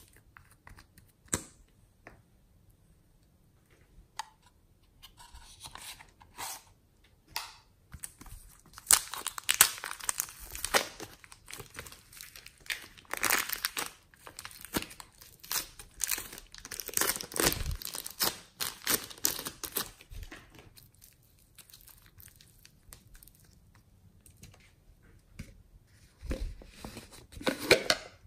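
Thin clear plastic wrapper crinkling and tearing in uneven bursts as it is peeled off a tube of modelling clay. A few sharp clicks come in the first seconds.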